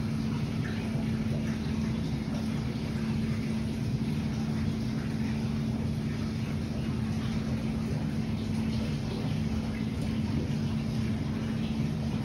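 Aquarium filter running: a steady low hum with a constant wash of moving water.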